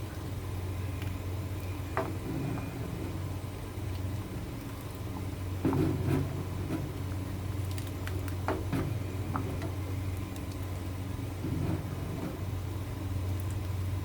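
Kitchen sounds while congee is being cooked: light knocks and clinks of utensils against cookware, scattered irregularly over a steady low hum.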